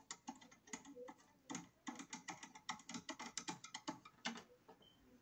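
Rapid, irregular clicking of a screwdriver driving the green bonding screw into a metal fuse disconnect box, which stops about four and a half seconds in.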